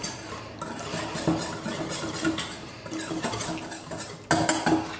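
A utensil stirring dry flour and spice mix in a stainless steel bowl, scraping and clinking against the bowl's side with a faint ring from the metal. A louder clatter about four seconds in.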